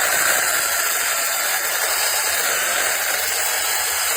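Battery-powered 6-inch mini chainsaw running steadily at full speed, its small chain cutting through a small tree branch.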